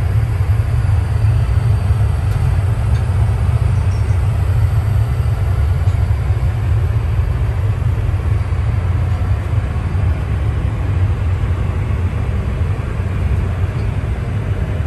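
Steady low rumble of an Airbus A321 airliner in flight: engine and airflow noise heard inside the aircraft's lavatory, with no changes or sudden sounds.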